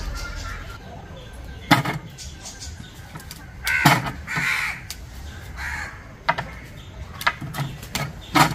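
Sharp clicks and taps of a knife cutting cauliflower florets and dropping them onto a plate. In the middle, a bird calls harshly three times.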